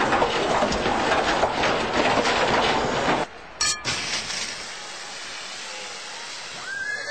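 Dense, loud clattering noise that cuts off suddenly after about three seconds. A sharp pop follows, then a quieter steady fizzing hiss as beer foam gushes up out of a bottle neck.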